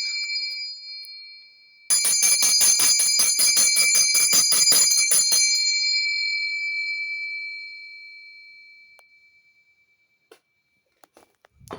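Small high-pitched handbell being rung. It is struck once at the start and rings out. About two seconds in it is shaken fast, the clapper striking about six times a second for some three and a half seconds, and then the ringing dies away slowly over several seconds.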